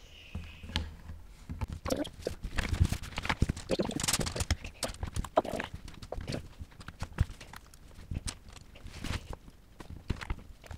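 Loose plastic Lego Technic pieces clicking and rattling as hands rummage through a tray of parts and fit pieces together, in a quick irregular run of clicks that is busiest in the first half and thins out later.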